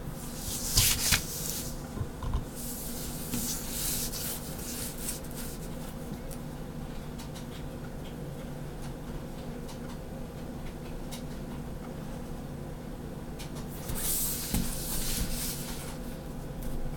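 Pen and clear plastic grid ruler scratching and rubbing on paper as lines are drawn along the ruler and the ruler is shifted on the sheet. There are short scratchy passes about a second in, around three seconds in and again near the end.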